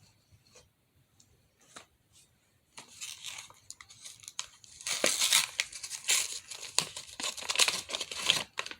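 Plastic packaging being torn open and crinkled by hand, starting about three seconds in and growing loud for the last few seconds. A few faint clicks come before it.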